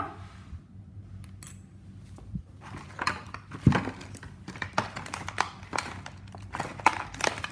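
Hands handling plastic model parts and their packaging: a few scattered clicks, then a busier run of clicks, taps and crinkling from about three seconds in, with one louder knock.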